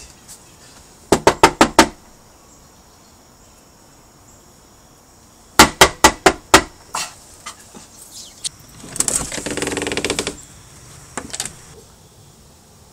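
Knuckles knocking on a front door's glass pane: two runs of five quick knocks about four seconds apart, with a few lighter taps after the second run. A buzzing sound lasting about a second follows near the end.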